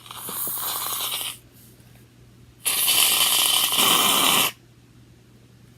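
Aerosol shaving cream hissing out of its can in two bursts, the second a little longer, squirted into slime glue to make it fluffy.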